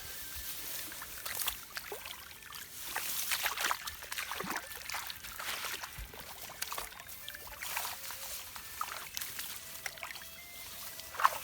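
Shallow muddy water splashing and dripping in a string of irregular short splashes, with a louder splash near the end.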